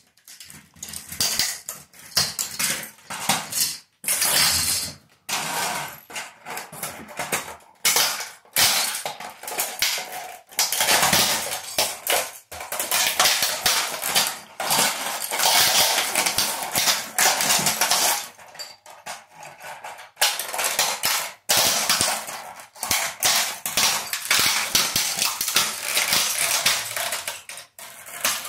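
Plastic toy engine being crushed under wedge sandals on a tile floor: near-continuous cracking, crunching and snapping of plastic, with shards clattering against the tile, broken by a few short pauses.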